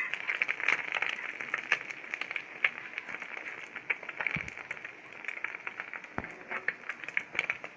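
Egg frying in oil in a flat pan, the oil sizzling with many sharp crackles and pops. Two duller knocks, about four and six seconds in, come from a metal spatula against the pan.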